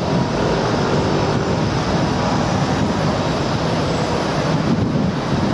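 Steady rushing spray of water washing mud off a toy bus, even and unbroken throughout.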